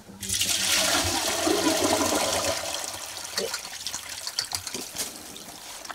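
Water poured from a large metal pot into a shallow copper basin, splashing and rushing loudest for the first two or three seconds, then running on more lightly.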